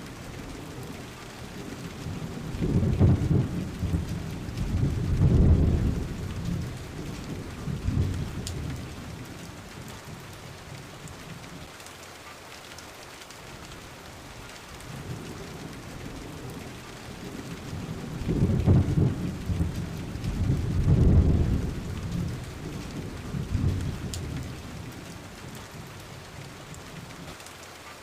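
Steady rain falling, with two long low rolls of thunder: one begins about two seconds in and another just past the middle, each swelling several times before dying away.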